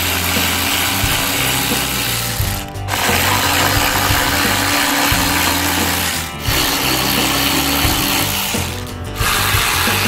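ACDelco 1/4-inch cordless ratchet running under load, backing out bolts on an old rusty car body. It runs in spells of about three seconds with brief pauses between them.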